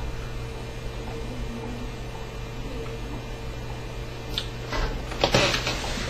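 Steady low electrical hum of room tone. From about four and a half seconds in, rustling and a few knocks as the camera is handled and moved.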